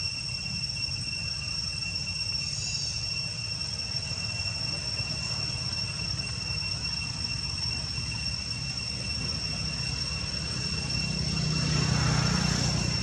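Insects droning steadily at two high pitches, over a low background rumble that swells louder near the end.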